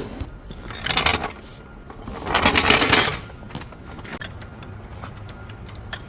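Metal hand tools rattling and clicking in two short bursts, the second longer, then a few light clicks, as the negative battery cable is being disconnected.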